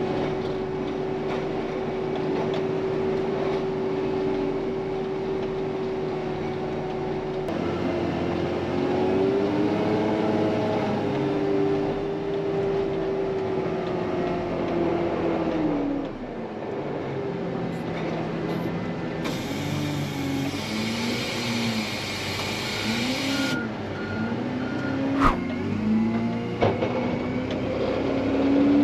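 Wheel loader plowing snow: its diesel engine drones steadily, then rises and falls in pitch as it pushes and manoeuvres. A reversing alarm beeps a few times about three-quarters of the way in, followed by a single sharp knock.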